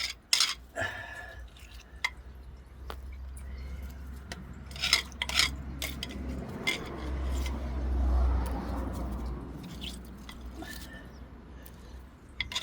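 A few sharp metallic clinks of hand tools against metal or stone, over a steady low mechanical hum, with a rushing swell of noise about seven to nine seconds in.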